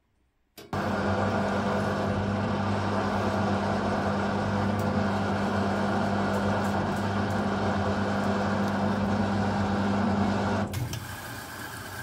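Asko 12605 front-loading washing machine running between rinse stages: a steady mechanical hum with a noisy rush over it, cutting off suddenly near the end to a quieter running sound.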